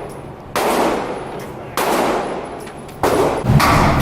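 Three gunshots about a second and a quarter apart, each with a long echoing decay. A steady low rumble sets in near the end.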